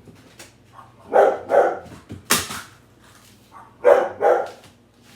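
Dog barking in short, loud barks, mostly in quick pairs, about six in all. It is barking at someone outside bringing the garbage cans in.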